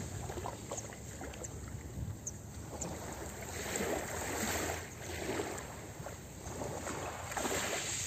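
Small sea waves lapping and washing onto a pebble beach, the wash swelling and fading twice.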